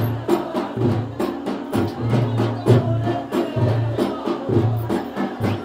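Traditional Pahari folk drumming playing a quick, steady dance beat, with sharp strikes several times a second over a deep booming drum tone.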